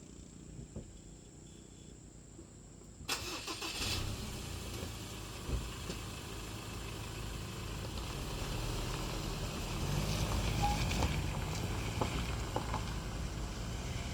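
A motor vehicle's engine running, coming in suddenly about three seconds in after a quiet stretch.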